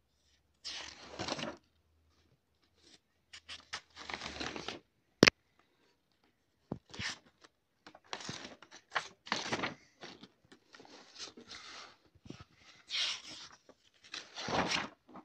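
Paper rustling and crinkling in irregular short bursts as spiral-bound sketchbook pages are handled and turned, with one sharp click about five seconds in.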